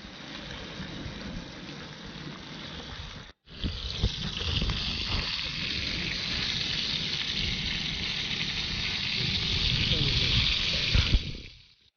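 Bacon sizzling in a frying pan: a steady hiss that breaks off about three seconds in, then comes back louder. A low rumble runs underneath.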